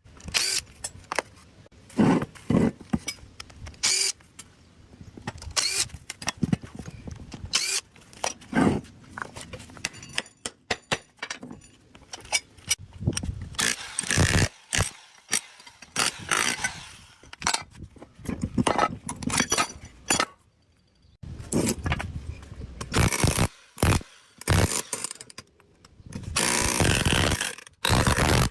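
Metal knocking, clanking and scraping as an electric motor is taken apart with hand tools: many sharp irregular hits, with a few longer scraping noises, the longest near the end.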